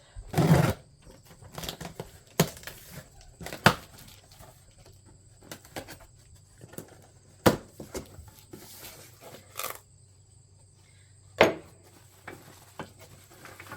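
Packaging being torn open and crinkled as smoker parts are unwrapped, with several sharp knocks and clicks of the parts being handled.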